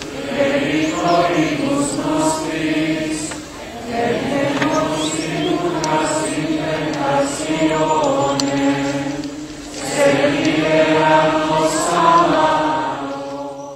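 Choir chanting a slow hymn in sustained notes over a low held drone note, fading out near the end.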